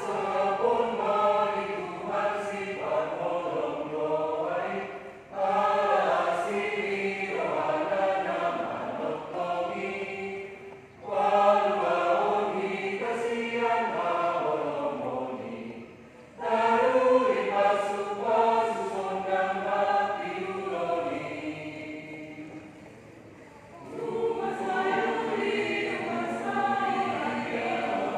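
A group of voices singing together in unison, in phrases about five seconds long with brief pauses between them.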